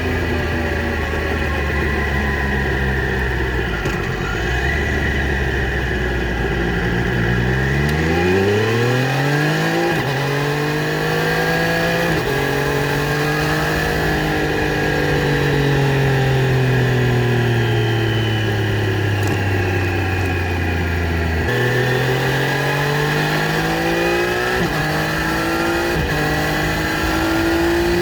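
Triumph Street Triple RS 765cc inline three-cylinder engine through its stock exhaust. It runs steadily at first, then pulls hard through the gears, with sharp quickshifter upshifts where the pitch drops suddenly. The note then falls slowly as the throttle is eased, a downshift brings it back up, and it accelerates and shifts up again.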